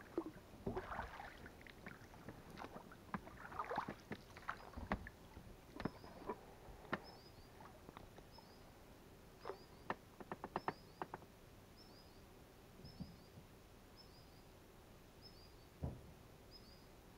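Inflatable boat being worked along the bank through overhanging branches: rustling, scraping and oar knocks for the first few seconds, then scattered sharp clicks and one louder knock near the end. A small bird repeats a quick, high, falling two- or three-note chirp about once a second from about six seconds in.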